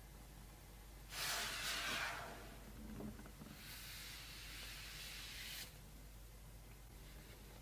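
Tablet packaging being handled: two stretches of rubbing and sliding noise, a louder one about a second in and a softer, longer one a little later, typical of a cardboard box lid sliding off or wrapping being pulled away.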